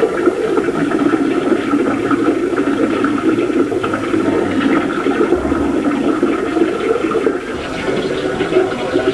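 Water running in a steady, unbroken rush.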